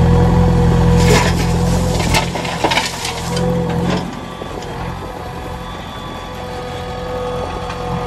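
Diesel engines running while the JCB backhoe loader's bucket dumps soil and stones into a steel tractor trolley, with several knocks and clatters between about one and three seconds in. The engine note drops at about four seconds.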